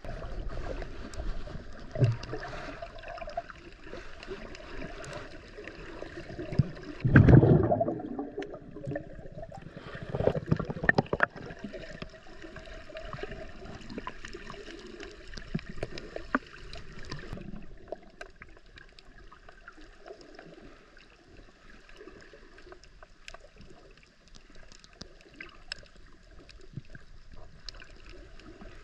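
Underwater camera sound while snorkelling over a reef: a muffled water gurgle with scattered faint clicks, a loud low rush about seven seconds in and another louder stretch around ten seconds, then quieter from about halfway through.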